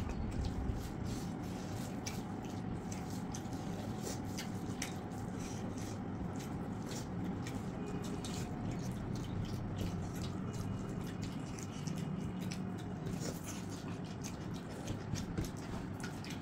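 Wet squishing and small clicks of hands mixing rice with chicken curry on steel plates, with eating sounds, over a steady low background hum.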